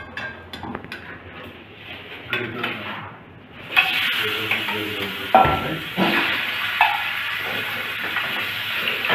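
Light clicks and knocks of metal tongs and a knife at a cutting board, then, about four seconds in, a sudden steady sizzle as pieces of meat are laid onto a hot ridged grill pan over a gas burner, with the tongs knocking and clinking against the pan a few times.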